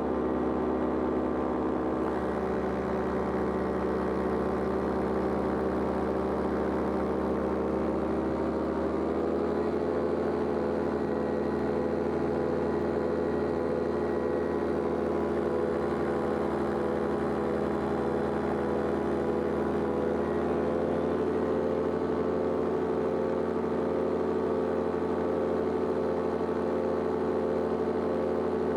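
Powered paraglider's engine and propeller running steadily in flight; the engine note rises slightly about nine seconds in and then holds.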